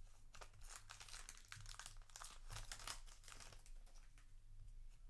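Faint crinkling and rustling of a foil trading-card booster pack and its cards being handled, in short irregular crackles.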